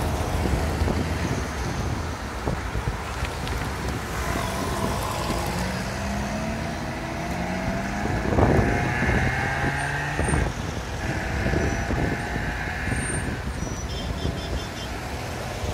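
Several cars driving slowly past one after another, their engines rising and falling in pitch as they pull away, loudest about eight and a half seconds in.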